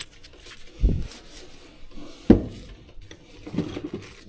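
Two dull thumps about a second and a half apart, the second louder.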